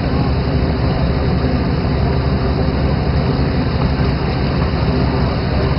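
Steady, loud running noise of a fishing boat under way: the engine running, with water rushing along the hull.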